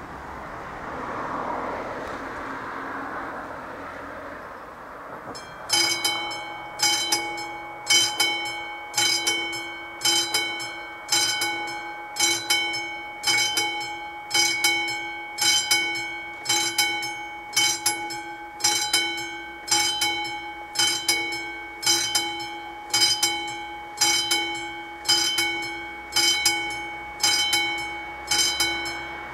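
A few seconds of steady rushing noise, then the AŽD 71 level-crossing signal's mechanical warning bell starts about six seconds in. It strikes about once a second with a ringing tone, warning that a train is approaching.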